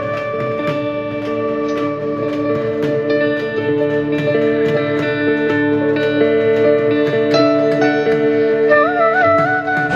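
Instrumental background music with sustained tones and plucked notes, without words.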